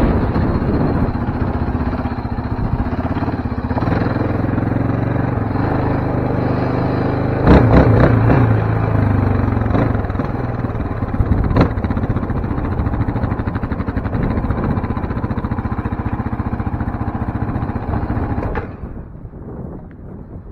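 Yamaha Raptor 700R sport quad's single-cylinder four-stroke engine running at low speed while the quad rolls along, with a couple of sharp knocks. The engine sound drops away suddenly near the end.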